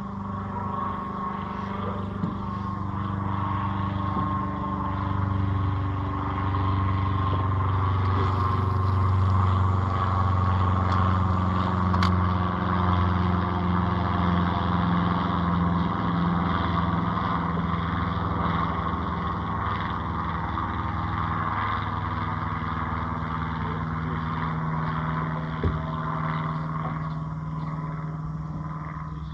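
A motor engine running with a low, steady drone that grows louder towards the middle and eases off again near the end, with a couple of faint clicks.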